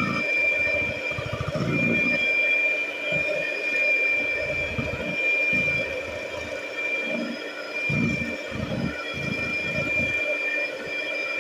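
Electric mixer running steadily with a constant high whine, whisking eggs and sugar into a batter, with irregular low rumbles from the beaters working in the bowl.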